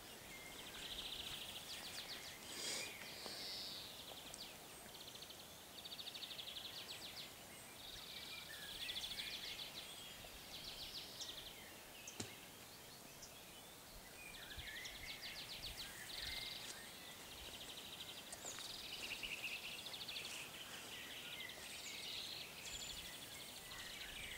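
Songbirds singing in short, rapidly repeated trilled phrases, over and over, with a single faint click about twelve seconds in.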